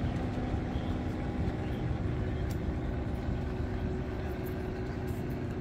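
Steady hum of an idling engine over a low, constant rumble of outdoor traffic noise.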